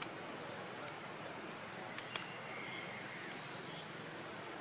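Steady outdoor background with a constant high-pitched insect hum, and a few sharp clicks, two of them close together about two seconds in.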